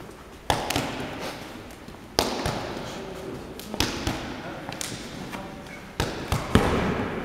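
Sparring contact in a large echoing hall: a handful of sharp slaps and thuds from arms striking and blocking and feet landing on gym mats, irregularly spaced, each ringing out briefly.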